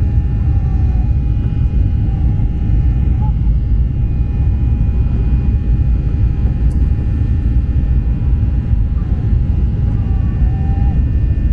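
Jet airliner cabin noise in flight: a loud, steady low rumble from the engines and airflow, with constant faint hum tones over it.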